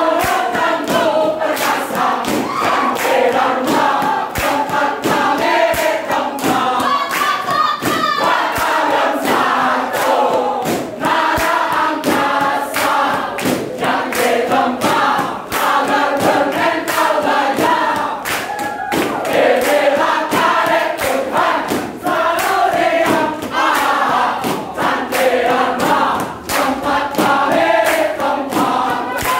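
A large group of young men and women singing together in chorus, loud and lively, with frequent sharp hand claps and stamping feet keeping time.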